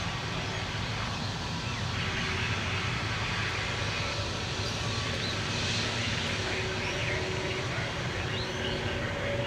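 Jet airliner engines running steadily, an even rumble with a faint whine.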